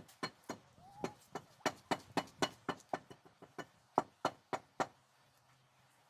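A quick series of sharp knocks, about three to four a second, that stops a little before five seconds in.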